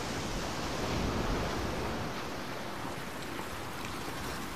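Sea surf washing and foaming over shoreline rocks: a steady rush that swells about a second in and eases slightly toward the end.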